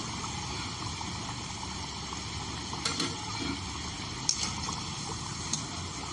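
Potato pieces frying in hot oil, a steady sizzle, with a few sharp clinks about three, four and five and a half seconds in.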